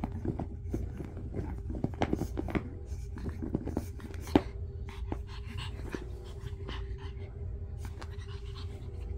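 A pug panting close up, with short rustles and clicks from it moving on the fluffy dog bed, over a steady low hum.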